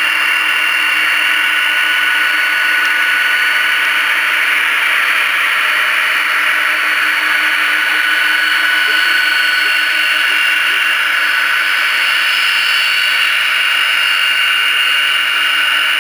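Boeing 767 jet engines running steadily: a constant rushing hiss with several steady high whining tones that hold the same pitch throughout.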